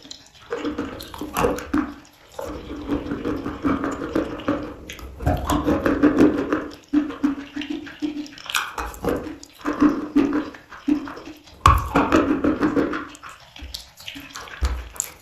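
Close-miked chewing and biting of chalk: wet, squishy mouth sounds mixed with irregular crunching clicks.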